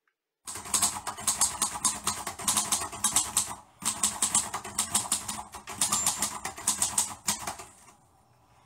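A fast, even run of sharp clicks, like typing on a keyboard, about five a second, in two stretches with a short break near the middle, fading out about a second before the end.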